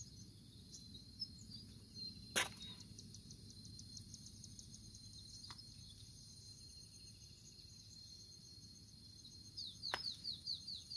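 Outdoor chirping of insects and birds: a steady high drone with fast repeated chirps, and a run of quick descending chirps near the end. A single sharp click about two seconds in is the loudest sound.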